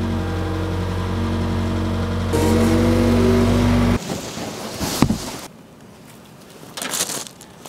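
Case 410 skid steer's diesel engine running steadily, stepping up in pitch as the throttle is raised, then stopping abruptly about halfway through. A single thump follows a second later, then faint scraping and knocks.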